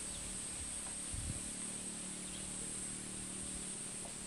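Steady high-pitched insect chorus, with some irregular low rumble underneath.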